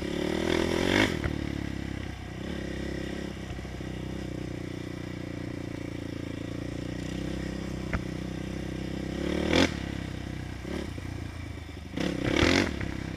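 450 sport quad's single-cylinder four-stroke engine running under load while being ridden, its note rising with throttle just after the start and surging again briefly about two-thirds in and near the end.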